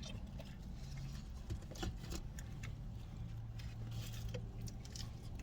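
Eating sounds inside a car: scattered small clicks, crinkles and mouth noises of chewing and handling food wrappers, over a steady low hum from the car.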